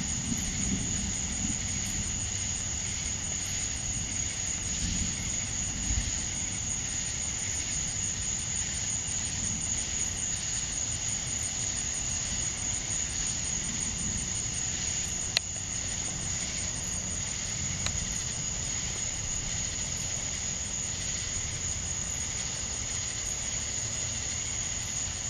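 Crickets chirping in a steady, fast-pulsing high trill. A low rumble dies away in the first couple of seconds, and a single sharp click sounds about fifteen seconds in.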